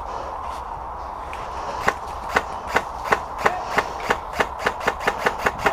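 A quick series of sharp clicks over a steady hiss, starting about two seconds in at about three a second and speeding up to about five a second.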